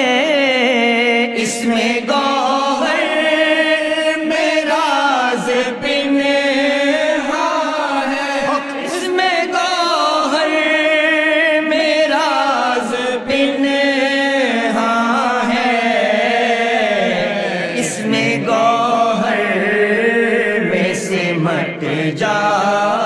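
A man's solo voice sings an Urdu devotional qasida in long, drawn-out phrases. The held notes waver and bend in an ornamented melody, with only brief breaths between phrases.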